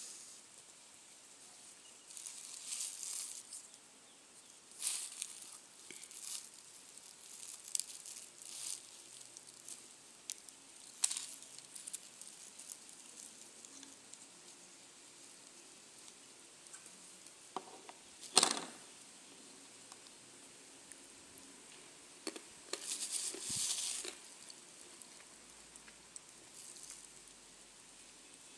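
Thin clear plastic bag rustling and crinkling in short, irregular bursts as lumps of kaolin clay are handled inside it, with one sharper crackle about two-thirds of the way through.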